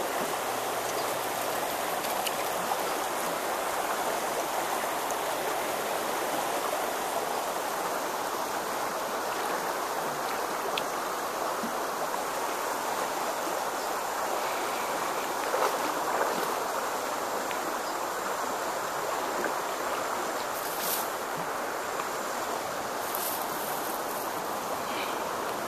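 Shallow river water running steadily over rocks, an even rushing sound. A few brief knocks and rustles come through, the loudest about midway.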